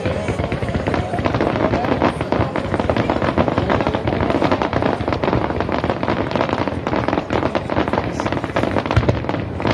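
Starmine fireworks barrage over the sea: a dense, unbroken run of shell bursts and crackling, one report running into the next.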